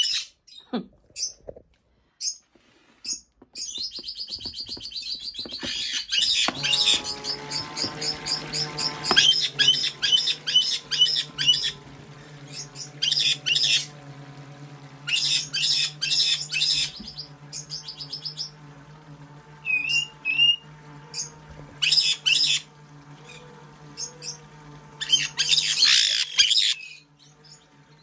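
Pet parrots chirping in quick, high, repeated bursts. Under them, from about six seconds in until near the end, the small electric pump of a toy doll bathtub hums steadily as water runs from its shower into the tub.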